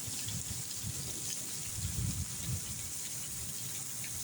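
Heavy rain falling in a steady hiss, with water gushing, and irregular low rumbles underneath.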